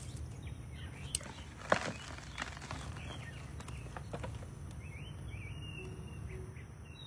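Scattered knocks and rustles of hands digging through garden soil and handling potatoes, the loudest knock about two seconds in. Birds chirp faintly in the second half.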